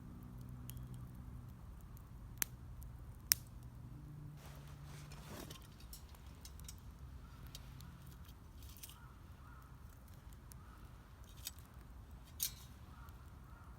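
Wood fire crackling quietly, with four sharp pops, the loudest about three seconds in.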